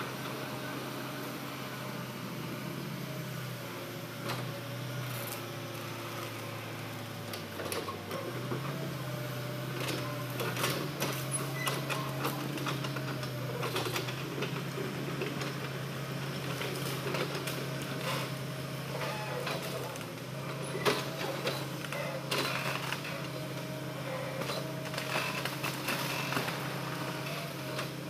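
Hitachi crawler excavator's diesel engine running steadily, its pitch sagging and then picking back up about eight seconds in. Irregular clicks and knocks come in about nine seconds in and carry on, as the machine works among felled logs and branches.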